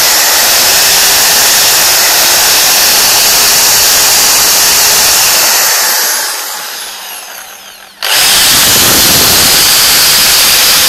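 Black & Decker KR704RE 710-watt hammer drill running steadily at full speed, held on by its trigger lock. About six seconds in it is released and winds down with a falling whine, nearly stopping. At about eight seconds it is switched on again at full speed.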